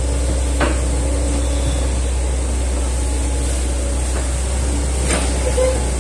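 Hitachi hydraulic excavator's diesel engine running steadily under digging work, a low drone with a steady hum, with two sharp knocks, about half a second in and near the end.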